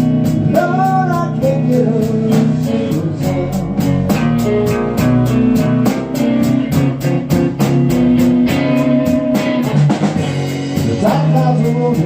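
Slow blues in G played by a band: guitar over a drum kit keeping a steady beat on the cymbals, with a voice singing.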